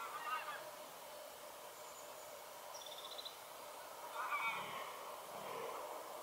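Geese honking faintly: a short bout of calls at the start and another about four seconds in. A small bird gives a brief trill about three seconds in.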